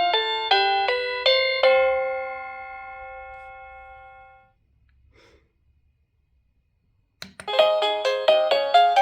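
Electronic doorbell chime speaker playing one of its tunes: a short melody of several ringing notes that fades away over a few seconds. After a pause of about three seconds and a click, a quicker tune of bright repeated notes starts, about three notes a second.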